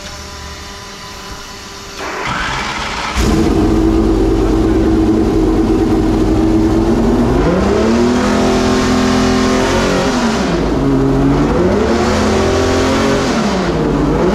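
Homemade V12 race engine with open exhaust headers cranking briefly and catching about three seconds in, idling steadily, then being revved up and down three times. It is being run with the tuning computer unplugged, to check a fault where the engine won't take throttle while the computer is connected.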